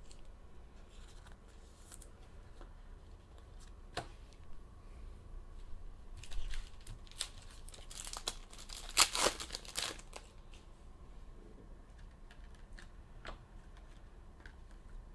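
Trading-card pack wrapper being torn open and crinkled, with the loudest tearing about eight to ten seconds in, among scattered light clicks and rustles of handling.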